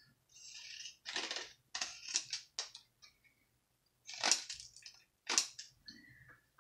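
Craft paper and supplies being rummaged through and handled on a tabletop: rustling and light handling noises in several short bursts with pauses between them.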